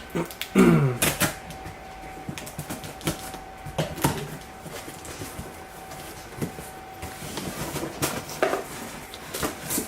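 A cardboard shipping box being opened by hand: irregular clicks, knocks, scraping and rustling, with a short falling squeak about half a second in. A faint steady hum runs underneath.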